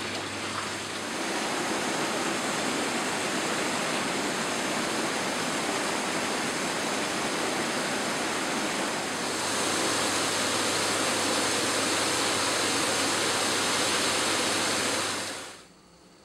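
Hot tub jets and a pillow waterfall running, the water churning with a steady rush. It grows louder about a second in and again around nine seconds, then stops suddenly near the end.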